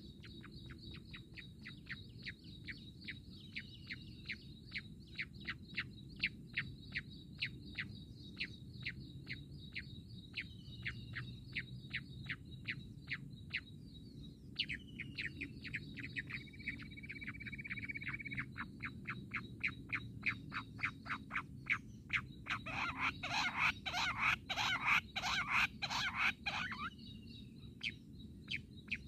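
Jungle bush quail calling: a long run of quick, sharp notes, about three a second, pausing briefly about halfway and turning into a louder, denser flurry a little after three-quarters of the way through.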